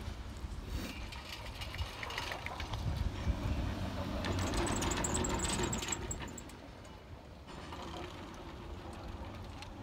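Chairlift running on its haul rope, with a mechanical clatter and rumble of the rope and chair rolling through a tower's sheave wheels. It grows louder for a few seconds in the middle, then drops away.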